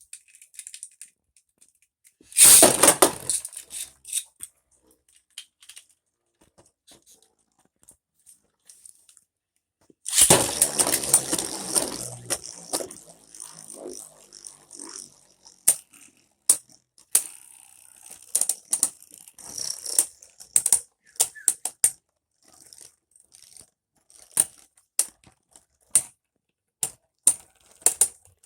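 Beyblade spinning tops launched into a plastic stadium about ten seconds in, then whirring at a high pitch and clacking against each other and the stadium walls in many sharp hits. There is a short loud rattle about two and a half seconds in.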